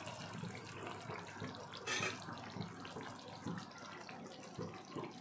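Thin egg curry gravy simmering in a pan, bubbling softly with many small irregular pops.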